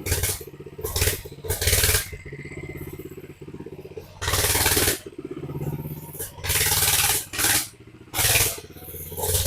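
Small single-cylinder engine of a 100cc Coleman minibike running steadily, broken by about seven loud, noisy surges lasting half a second to a second each.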